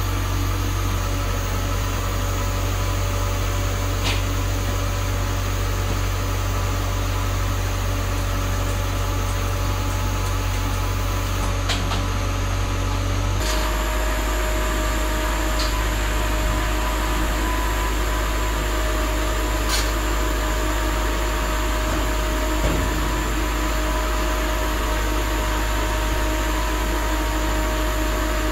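Kale harvester machinery running with a steady low mechanical hum and drone, with a few faint ticks. The pitch of the hum shifts abruptly about halfway through.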